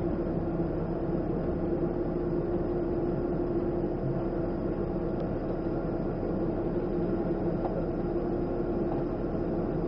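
A passenger ferry's engines droning steadily, heard from inside the cabin, with one constant hum running through the noise.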